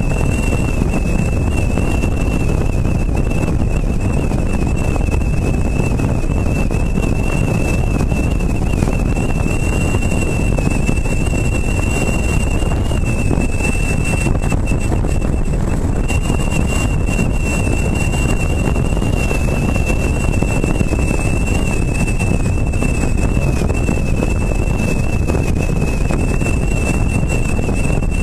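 Wind rushing and buffeting over a roof-mounted camera on a moving car, with road rumble underneath and a thin, slightly wavering high whistle on top.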